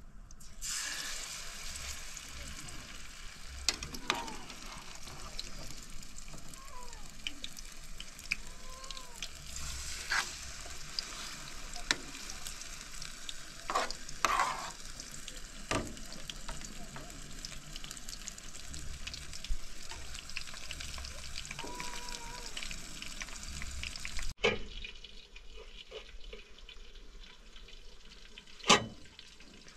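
Fish frying in oil in a pan, a steady sizzle with scattered clinks of a metal spoon against the pans. The sizzle cuts off suddenly about three-quarters of the way through, leaving a quieter background and one sharp knock near the end.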